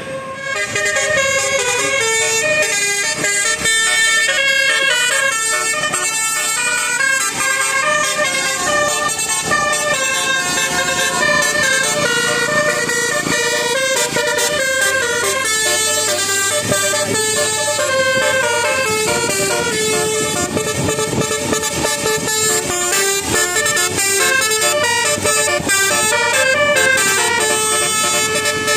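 Bus telolet multi-tone air horn playing a Basuri melody without a break: several horn trumpets sounding together in quick stepped notes.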